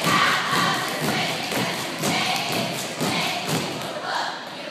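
A steady beat of thumps, about two a second, echoing in a gym.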